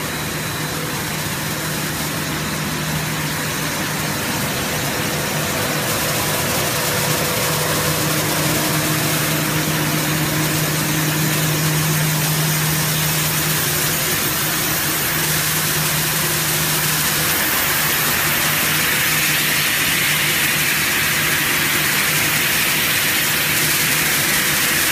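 Steady machinery noise of a running plastic strand pelletizing production line: a dense, constant hiss with a low hum underneath, the hiss growing somewhat louder toward the end.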